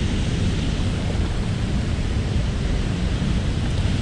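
Steady rush of turbulent water released through a dam spillway, churning fast downstream, heaviest in the low end.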